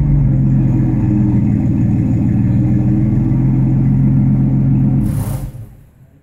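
Ford Mustang's 3.8-litre V6 running steadily through its exhaust, then cutting off about five and a half seconds in, with a brief hiss just as it stops.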